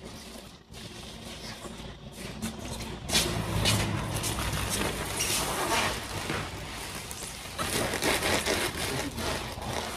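Factory handling noise: irregular scraping and rustling from workers handling sheet material, over a low steady hum, louder from about three seconds in.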